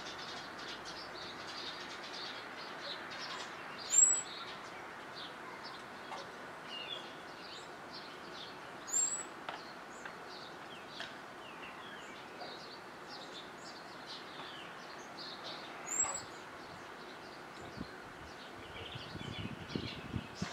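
Small songbirds chirping and twittering in the background, with three loud, short, high, thin calls about 4, 9 and 16 seconds in. Near the end comes a run of soft, irregular low knocks.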